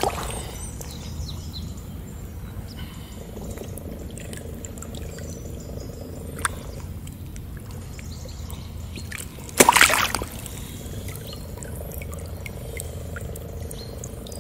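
Water trickling and sloshing around a wading angler as he handles a common carp on a floating unhooking mat, with scattered small drips and clicks. One loud splash about two-thirds of the way through.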